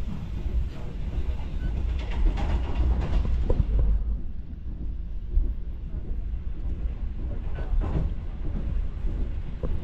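Passenger train coach running on the rails, heard from inside the coach: a steady low rumble, with a few sharper knocks about two to three and a half seconds in and again near eight seconds.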